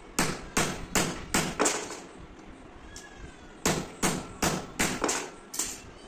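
Hammer striking a flat steel strip on a steel anvil block: five quick blows, a pause of about two seconds, then six more, each blow with a short metallic ring.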